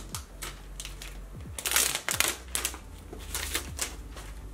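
Plastic wrapping being peeled and crinkled off a phone box by hand, a run of crackling rustles that is loudest about two seconds in.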